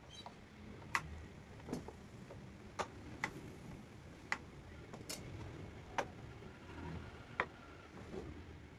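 About nine sharp taps or clicks at irregular intervals, roughly one every second, over a faint low rumble.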